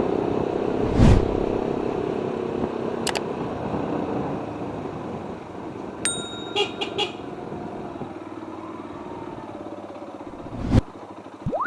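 Motorcycle engine running steadily while riding in traffic, with a few short horn toots about six to seven seconds in and occasional thumps.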